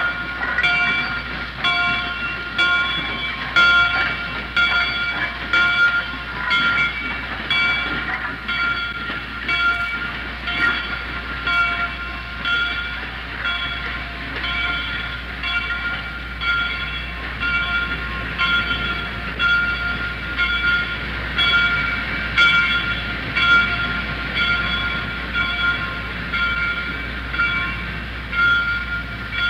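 A train at work in a railyard, with a metallic ringing struck over and over, about once a second, over a steady rumble of yard noise.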